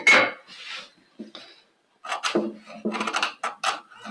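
Steel chisel scoring and paring across the grain of a softwood board: a sharp scrape at the start, then after a short pause a quick run of short scraping cuts.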